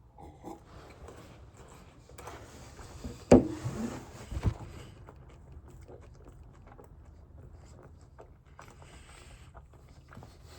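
A person chewing and eating a glazed donut, with small scattered mouth clicks. About three seconds in there is a sharp knock, the loudest sound, followed by a short pitched sound, and another knock about a second later.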